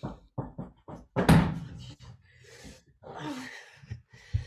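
Off-screen banging over a video call: a few light knocks, then one loud slam about a second in.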